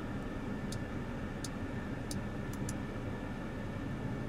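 Steady low hum inside a car's cabin, with about half a dozen faint, irregularly spaced clicks from the infotainment controls being worked by hand.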